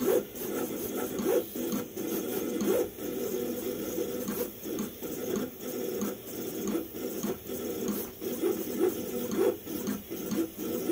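Vevor 28-inch vinyl cutter plotting an intricate drawing with a pen: the carriage and paper-feed motors whir in quick, irregular stop-start strokes as the head darts back and forth. It is not super noisy.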